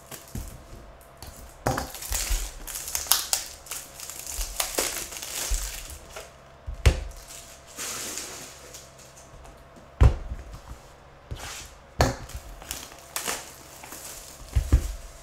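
Trading-card pack wrappers and a cardboard hobby box handled by hand on a tabletop: crinkling and rustling, with several sharp knocks a few seconds apart in the second half.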